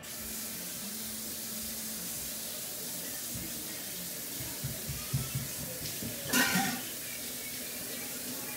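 Kitchen tap running steadily into a sink, with a few soft knocks and a louder brief knock about six and a half seconds in.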